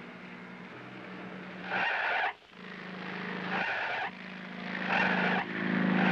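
Cartoon sound effects of a jeep: a steady engine hum with four screeching skids, the last the longest and loudest.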